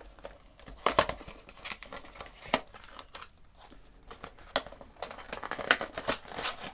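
A cardboard product box being handled and opened, making irregular crinkling and scraping with several sharp clicks and taps, the loudest about a second in and near the end.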